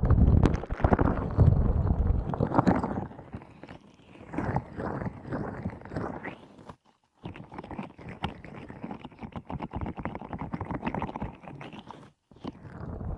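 Slimy squishy squeeze toy pressed and worked over the microphone's ears, giving close, wet squishing and crackling. The sound cuts out briefly twice, a little past halfway and shortly before the end.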